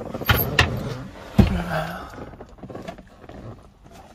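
A few sharp knocks and thumps inside a small space: two close together near the start, and a louder thump about one and a half seconds in, followed by a brief low tone. The rest is quieter handling noise.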